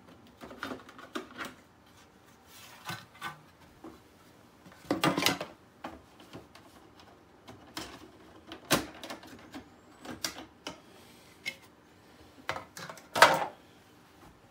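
Scattered plastic clicks and knocks as the side panels of an Epson SureColor P600 printer's plastic shell are worked loose and the printer is handled. There are two louder, longer clatters, about five seconds in and near the end.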